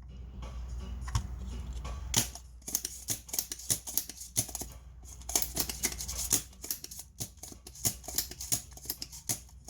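Irregular small sharp clicks and scraping of hand tools working on a circuit board during desoldering of power-supply MOSFETs, over a low steady hum.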